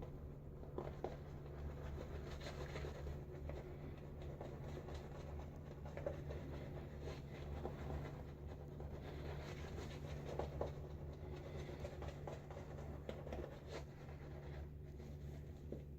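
Silvertip badger shaving brush lathering a rich shaving cream on the face: a faint, steady scratchy brushing with small wet clicks, over a constant low hum.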